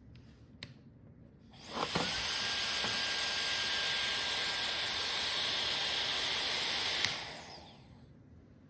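Hair dryer switched on about one and a half seconds in, its motor winding up into a steady rush of blowing air with a high whine, then switched off a little after seven seconds, with a click, and winding down.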